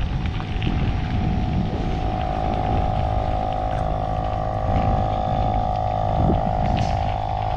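Bicycle tyres rolling on a gravel road with wind on the microphone. From about two and a half seconds in, a steady machine hum rises over it: milking equipment running in a dairy parlor.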